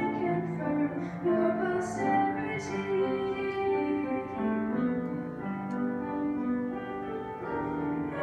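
A young girl singing a hymn solo with piano accompaniment, in long held notes that step up and down.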